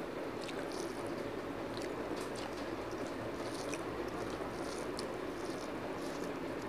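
Fingers mixing rice with fried greens by hand on a steel plate: soft wet squishes and small scattered clicks over a steady background hiss.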